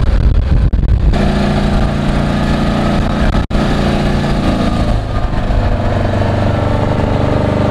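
Engine of a side-by-side off-road vehicle running as it is driven. For about the first second wind rumbles heavily over the microphone. The sound then changes abruptly to a steady engine hum, with a very short gap about three and a half seconds in.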